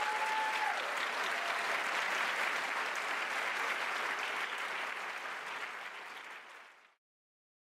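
Large audience applauding, easing off over the last couple of seconds and then cutting off suddenly.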